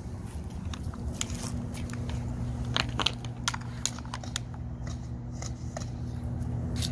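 Scattered sharp crackles and clicks, strongest around the middle, over a steady low hum from a running vehicle engine.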